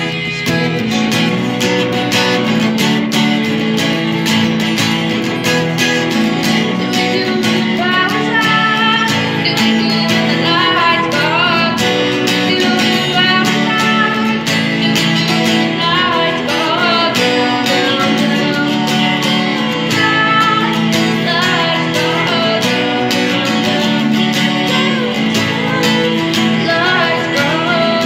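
Acoustic guitar being strummed, with a woman singing over it from about eight seconds in.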